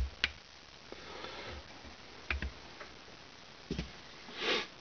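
Scattered light clicks and knocks of a Glock 40 pistol being handled and laid down on a mat, then a short breathy sound near the end.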